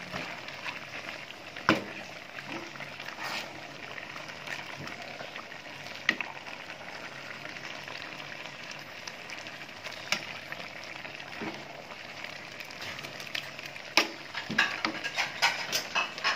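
A pot of leaves and food scraps boiling with a steady bubbling hiss as a stick stirs it. The stick knocks sharply against the metal pot every few seconds, in a quick run of knocks near the end.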